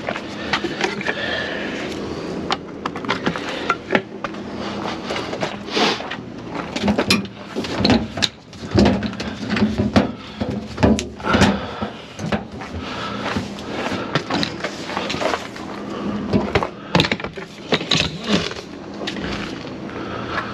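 Irregular knocks, clanks and handling noises of a milk tanker's rear pump cabinet being opened and the electric cord and milk hose set up, over a steady machine hum.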